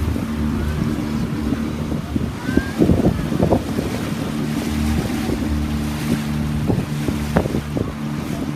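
Small boat's motor running with a steady low hum while under way, with water rushing along the hull and wind buffeting the microphone. Louder gusts or bumps come around three seconds in and again near seven seconds.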